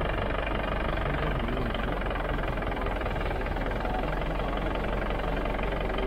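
Jeep engine running steadily, a constant low hum under a dense mechanical rumble.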